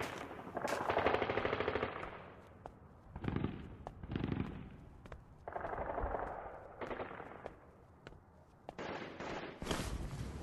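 Machine-gun fire in repeated rapid bursts with quieter gaps between, growing louder and longer near the end.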